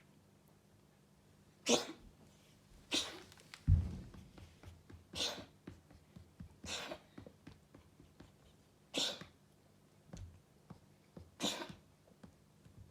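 A cat sneezing over and over: about six short, sharp sneezes a second or two apart. A dull thump, the loudest single sound, comes just after the second sneeze.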